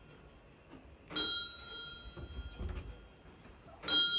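Bell on a large hand-turned Tibetan Buddhist prayer wheel, struck once per turn as the wheel spins: a clear ding about a second in and another near the end, each ringing on and fading slowly.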